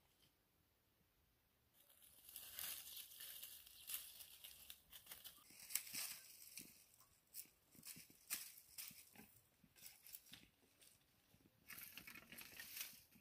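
Dry brushwood and stalks crackling and snapping as they are pulled from a woodpile. Quiet at first, then from about two seconds in a busy crackle of many sharp snaps, with a short lull before a last burst near the end.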